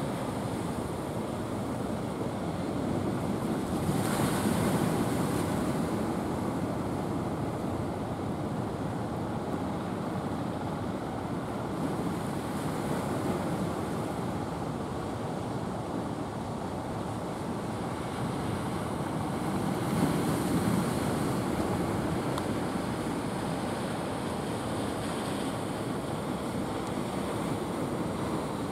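Ocean surf breaking on the beach: a steady rushing wash of waves, swelling louder as a wave breaks about four seconds in and again near twenty seconds.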